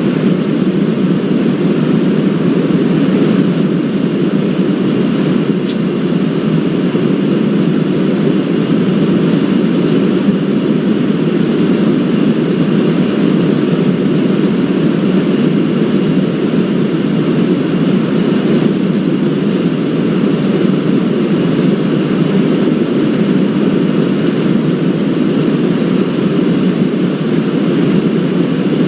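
Steady airliner cabin noise: an even, unchanging low rumble with a faint high whine over it.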